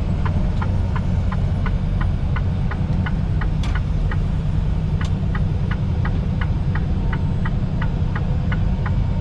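Inside a semi-truck cab at highway speed: the steady low rumble of the tractor's engine and the road. Over it, an even clicking just under three times a second from the dash turn-signal/hazard flasher.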